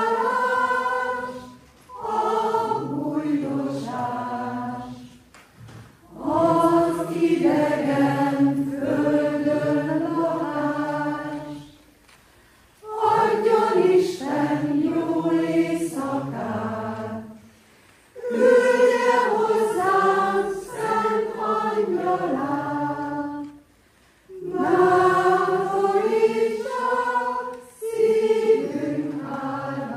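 A mixed choir singing a cappella in about six phrases of a few seconds each, with short breaks between phrases.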